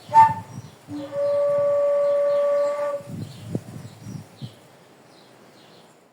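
Clear whistled notes: a short note, then one long steady whistle held for about two seconds, followed by low rustling knocks and faint high chirps.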